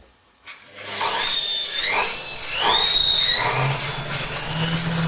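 Washing machine motor spinning the drum up to speed: a high whine that climbs in pitch in steps over about three seconds and then holds steady, with several knocks from the load in the drum as it speeds up.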